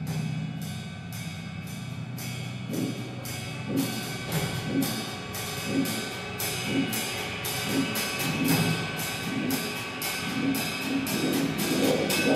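Live band playing an instrumental passage: sharp high percussive ticks repeat about two or three times a second over a low steady drone, and a deeper beat about once a second joins a few seconds in, the music growing louder near the end.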